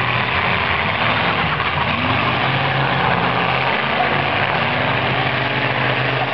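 Demolition derby car engines running and revving, their pitch rising and falling, over a steady din from a large grandstand crowd.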